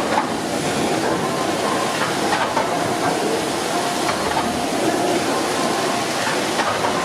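Steam engine at work: a steady hiss with mechanical clatter and a few sharp knocks.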